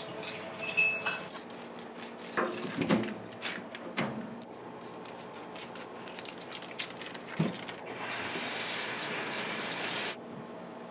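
Kitchen sink tap running water into a bowl for about two seconds, then shut off abruptly. Before it come a few sharp knocks and clatters of utensils being handled, louder than the water.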